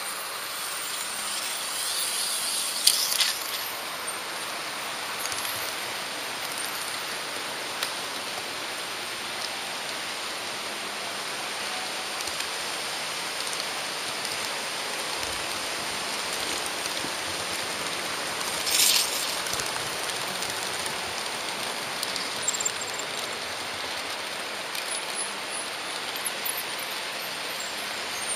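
Märklin HO-scale model train running along the track, a steady rolling hiss and rattle from its wheels and pickup shoe. A brief, sharp squeal comes about three seconds in and again about nineteen seconds in.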